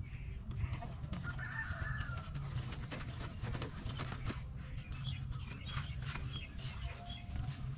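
Steady low rumble of wind on the microphone, with birds calling now and then and a longer call about two seconds in. Through the middle and later part comes a run of clicks and knocks from a small hand cart rattling along a dirt track, with footsteps passing close.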